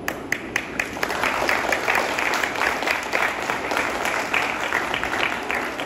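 Audience applauding: a few separate claps at first, building into steady, dense clapping about a second in, then tailing off near the end.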